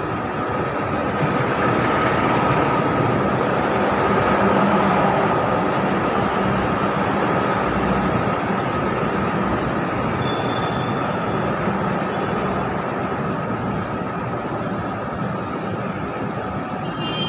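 Intercity passenger train passing close below: the diesel locomotive goes by first, then the coaches keep up a steady rolling noise on the rails. It is loudest a few seconds in and slowly eases off.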